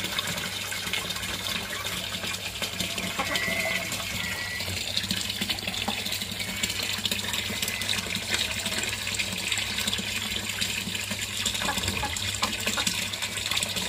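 Water pouring from a pipe into a tank, a steady splashing that goes on unchanged.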